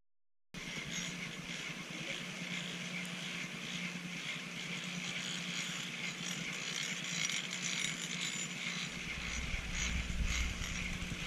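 Steady outdoor ambience on a snowy ski slope: a faint even hiss with a low steady hum, starting after a moment of silence. About nine seconds in, a low rumble of wind on the microphone comes in.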